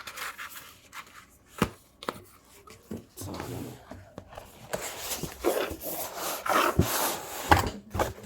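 Cardboard keyboard box being handled and turned over: rubbing and scraping, with a few sharp knocks and a denser stretch of rustling in the second half.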